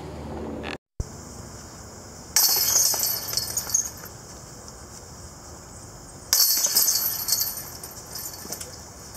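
Disc golf discs hitting the hanging chains of a basket twice, about four seconds apart. Each hit is a bright metallic jangle that fades out over a second or so.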